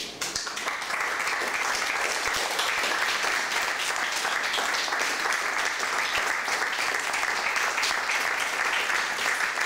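Theatre audience applauding: the clapping breaks out suddenly, builds within the first second, then holds steady.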